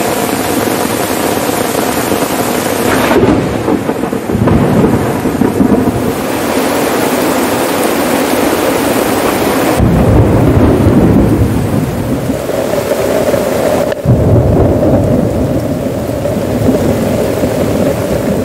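Heavy rain falling on tent flysheets, a tarp and forest foliage, with deep rolls of thunder. The sound changes abruptly about three, ten and fourteen seconds in.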